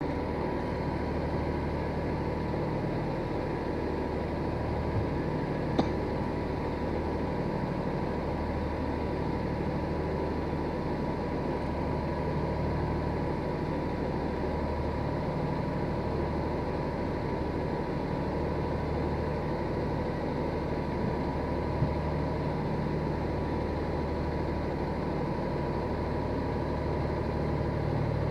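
Steady motor drone with a low hum that swells and eases every few seconds, and a faint steady tone above it; a single sharp click about six seconds in.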